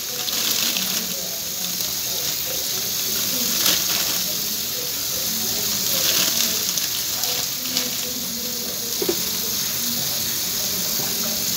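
Kitchen tap running steadily into a stainless steel sink over a colander of grapes, with a plastic bag rustling a few times as the grapes are tipped out of it.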